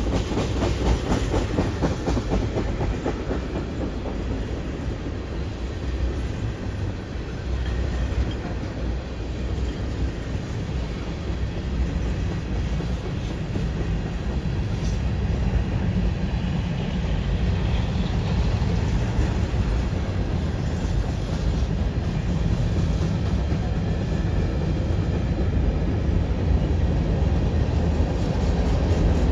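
Freight train cars (tank cars and hoppers) rolling steadily past: a continuous rumble of steel wheels on rail, with a rhythmic clickety-clack as the wheels cross the rail joints, clearest in the first few seconds.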